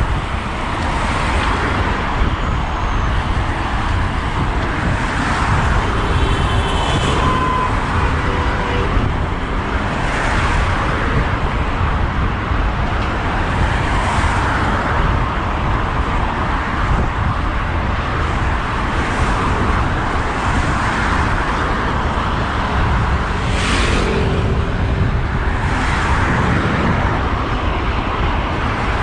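Road traffic passing one car after another, each a swelling and fading rush of tyre and engine noise, over a steady low rumble of wind on the microphone of a moving bicycle. One short sharp noise cuts through about three-quarters of the way in.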